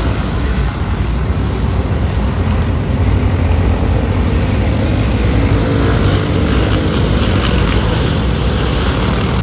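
Engines of small race cars running on a dirt oval track, heard as a loud, steady drone.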